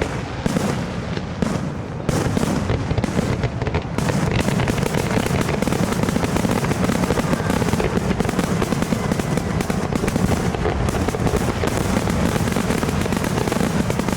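Fireworks barrage: many shells bursting in quick succession, their reports overlapping into a continuous rumble and crackle that grows louder and denser about two seconds in.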